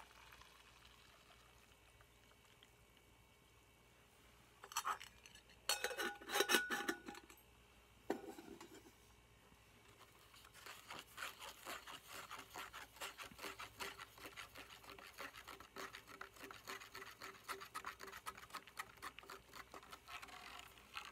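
Titanium cup and its lid clanking as they are handled and set down, with a brief metallic ring, then a thud. Then about ten seconds of rapid, regular scraping and clicking as the contents of a white disposable cup are stirred.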